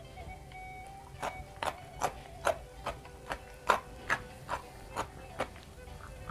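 A person chewing crunchy raw vegetables close to the microphone: crisp crunches in a steady rhythm of about two and a half a second, starting about a second in.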